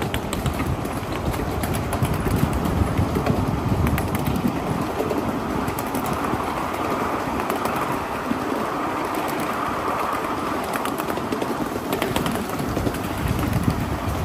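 1/8-scale live steam train running along its track: a steady rumble of wheels on rail with scattered clicks.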